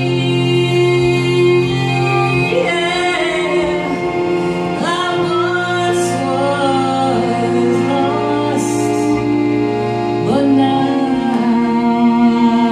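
Live kirtan: a woman sings a chant melody over a steady, held instrumental drone whose notes shift twice.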